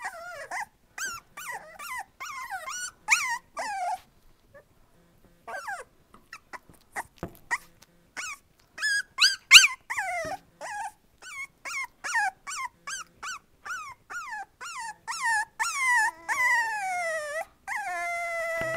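Young puppies, about four and a half weeks old, whining and yelping in a string of short high calls that drop in pitch, with a short pause about four seconds in and a few longer drawn-out whines near the end.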